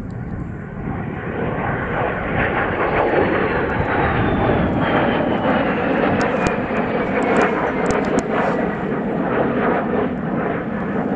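A pair of de Havilland Vampire jets flying past, their Goblin turbojets building to a loud roar. A high whine falls steadily in pitch as they go by.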